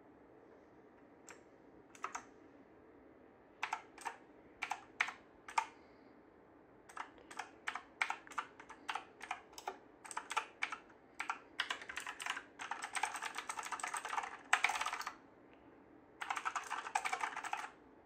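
Havit HV-KB378L mechanical keyboard keys being pressed: a few separate keystrokes at first, then quicker typing that builds into two long runs of rapid key presses in the second half.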